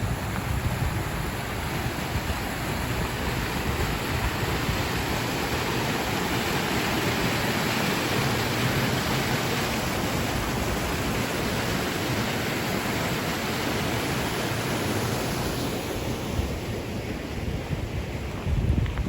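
Steady rushing of water, with wind buffeting the microphone in low, uneven gusts.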